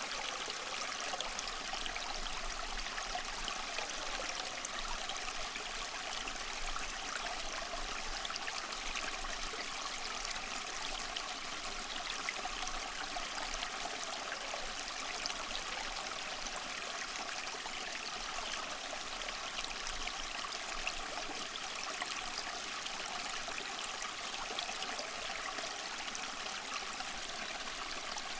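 Water trickling and splashing steadily down a small cement tabletop waterfall fountain, kept flowing by a submersible pump.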